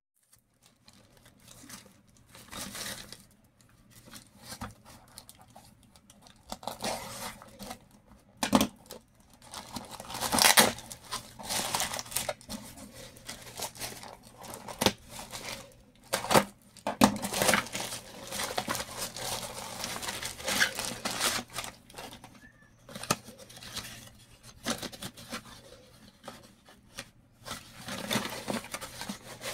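Plastic parcel wrapping and tape being torn open by hand, with crinkling and rustling as a cardboard box is worked out of it; irregular bursts, the loudest about ten seconds in.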